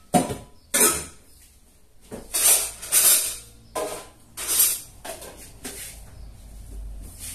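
Kitchenware being handled and put away in cupboards: a string of short clatters and knocks of dishes, pots and cupboard doors.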